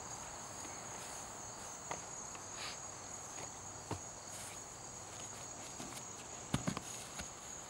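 Steady high-pitched chirring of crickets, with soft thuds of bare feet on grass: a few light steps, then a heavier thump near the end as a cartwheel full twist lands.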